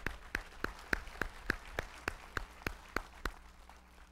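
A church congregation applauding, with one person's sharp, even hand claps standing out at about three a second. The claps stop a little over three seconds in and the applause dies away.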